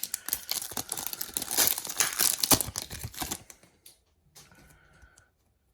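Plastic foil trading-card pack wrapper crinkling and tearing open, a dense crackle that stops about three and a half seconds in.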